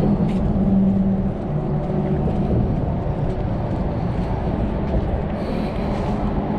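Steady low rumble of road traffic passing, with a faint droning hum in it.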